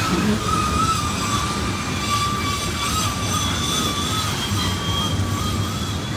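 Coal hopper cars of a freight train rolling past on curved track: a steady low rumble of the wheels on the rails, with a wavering high-pitched squeal of steel wheels against the rail running over it.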